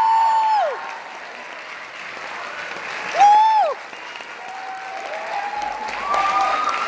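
Audience applauding in a theatre, with high-pitched held cheering shouts over the clapping. One shout dies away just after the start, a short shrill whoop comes about three seconds in and is the loudest moment, and the applause and cheering swell again near the end.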